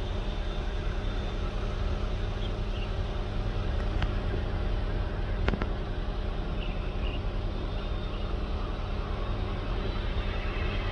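Steady distant rumble of a Boeing 787 Dreamliner's twin jet engines as the airliner moves along the ground, with two faint clicks about four and five and a half seconds in.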